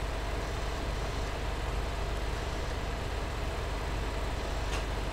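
Steady background hiss with a low electrical hum and buzz from a computer microphone, with no speech; a faint click near the end.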